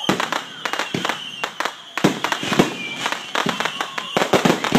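Consumer fireworks going off in a rapid run of bangs and crackles from aerial bursts, with the sharpest cracks about two seconds in and again near the end. A steady high-pitched tone runs underneath.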